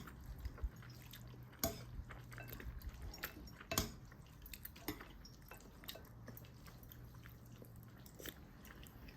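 Quiet eating at a table: a few sharp clicks of utensils against a bowl and soft chewing of noodles, spread irregularly over a faint low hum.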